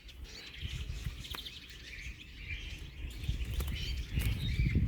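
Small finches chirping and twittering, short calls repeating throughout, over a low rumble that grows louder toward the end.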